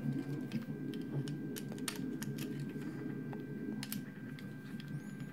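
Scattered light clicks and taps of a 3D-printed ABS plastic extruder and a hex driver being handled while its damper screws are tightened, over a steady low background hum.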